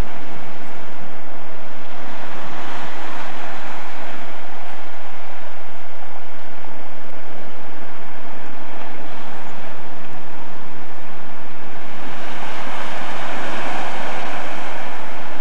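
Surf washing onto a rocky shore: a steady rushing noise that swells twice as waves break, once a couple of seconds in and again near the end.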